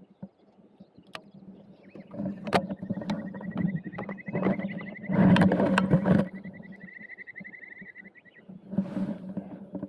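Water splashing and knocking close to the microphone, loudest about five to six seconds in and again near the end, over a steady high, rapidly pulsing trill.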